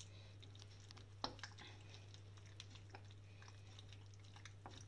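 A ladle pressing and beating soft cooked keşkek wheat in a metal pot: faint squishing with scattered light knocks, one sharper knock about a second in. The wheat is being pounded until it turns sticky and gum-like.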